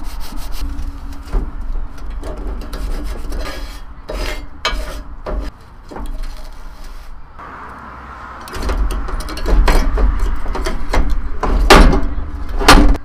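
Paper towel rubbed back and forth over a porcelain-coated cast iron griddle plate, wiping off the cooking grease, in quick strokes at first and then pushed around with metal tongs. The scraping gets louder and closer from about two-thirds of the way in, with a few sharp scrapes near the end.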